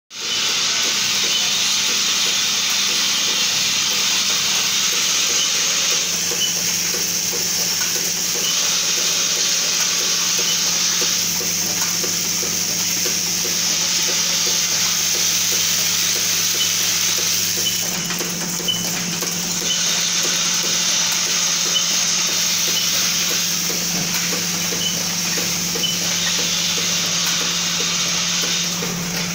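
Automatic transformer core-insertion and taping machine running: its vibratory bowl feeders hum steadily while the small cores and bobbins in them make a constant rattling hiss. Light clicks from the mechanism come every second or two.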